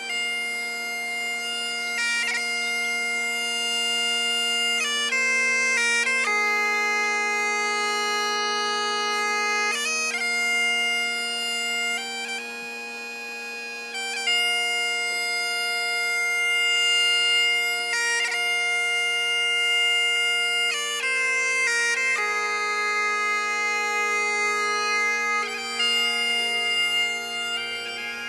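Bagpipe playing a tune: the melody steps between notes over continuous steady drones, with a quieter held passage in the middle. There are no drums.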